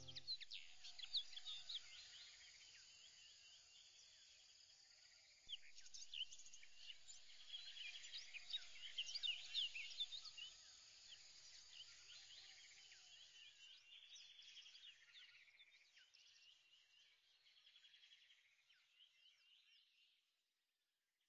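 Faint chorus of many small birds chirping, with quick overlapping chirps and whistles. It grows busier about a quarter of the way in and fades away just before the end.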